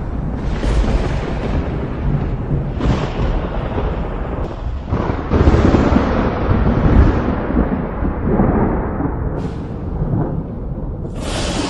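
Thunderstorm thunder: a series of sharp lightning cracks, each rolling into a deep, long rumble, with the heaviest rumble in the middle.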